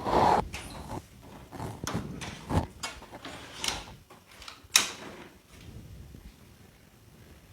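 Copier developer unit and its gear being handled and fitted by hand: a run of clicks and knocks, with a louder knock at the start and a sharp click about five seconds in.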